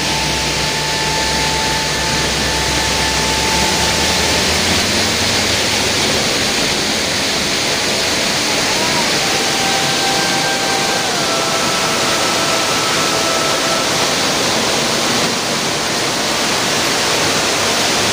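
Waterfall rushing: a loud, steady roar of falling water, with a few faint high held tones over it now and then.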